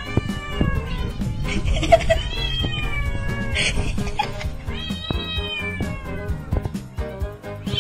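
A cat meowing in three long, drawn-out calls, each sliding down in pitch at the end, the last one the longest, over background music.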